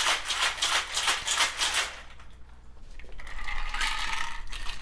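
Rapid, rhythmic rattling, several strokes a second, fading after about two seconds; a fainter rattle with a ringing tone follows near the end.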